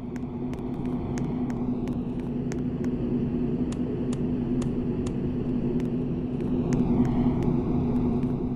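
KDK D15ZM ceiling fan running with a steady motor hum and light regular ticks, about two or three a second. The hum swells a little about seven seconds in, then eases.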